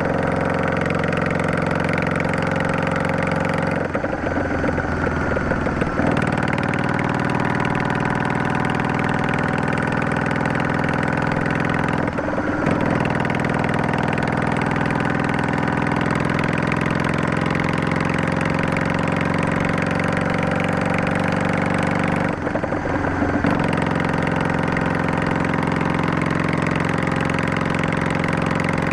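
Exhaust note of a Yamaha DragStar 400's air-cooled V-twin through a Garage T&F Vent muffler Type 2 with a luxury inner silencer, running steadily under way. The steady note breaks briefly three times, about four, twelve and twenty-two seconds in.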